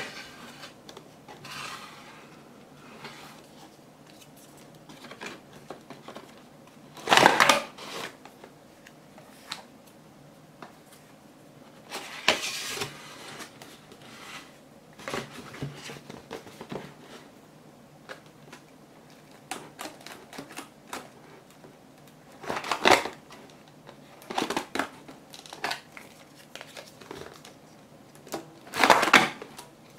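Cardboard rustling and scraping as a paper-craft vending machine is handled, its panels opened and small cardboard candy boxes slid and tapped into its shelves. The sounds come in irregular bursts, with a handful of louder scrapes several seconds apart.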